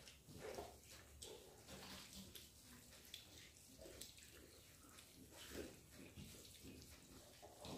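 Faint wet eating sounds: fingers squishing rice and curry against steel plates and mouths chewing, with small irregular clicks and smacks.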